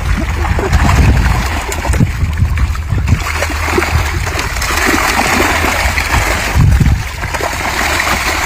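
Water splashing and sloshing.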